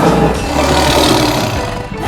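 Tiger roaring: one long rough call that fades out near the end, with music underneath.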